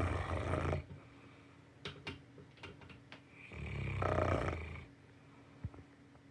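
St. Bernard puppy snoring in its sleep: two loud snores about four seconds apart, with a few faint clicks between them.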